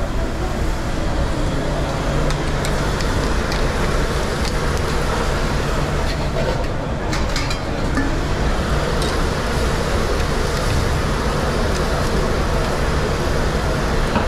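Commercial kitchen during service: the steady roar of the extraction hood over the cooking line, with a low hum and a few light clinks of utensils.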